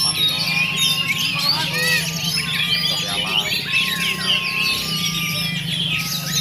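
Several oriental magpie-robins singing at once: a dense, overlapping chorus of high whistles and rapid trills, steady throughout.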